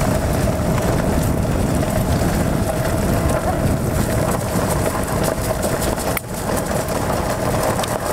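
Wheels of a dog-drawn sled cart rolling over a gravel trail: a steady rumbling crunch that runs on without a break.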